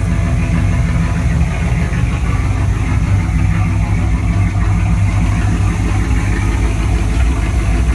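1982 Pontiac Trans Am's V8 engine idling steadily while still cold, warming up after a cold start.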